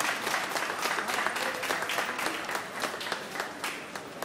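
Crowd applauding with dense, irregular clapping that thins out and gets quieter toward the end.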